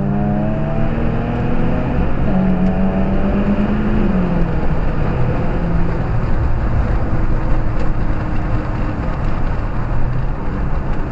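Lawn mower engines running steadily under load, one holding a higher pitch and then dropping back about four seconds in.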